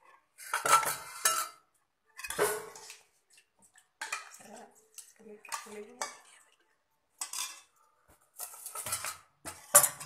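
Metal spoon clinking and scraping against a ceramic serving bowl and a stainless steel bowl as sambar is spooned onto rice. The clatter comes in short, separate bursts with brief pauses, the sharpest clink near the end.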